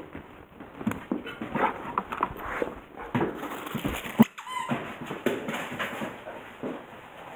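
Dog greeting excitedly, with claws scrabbling and clicking on a tile floor and brief whines; a sharp knock about four seconds in.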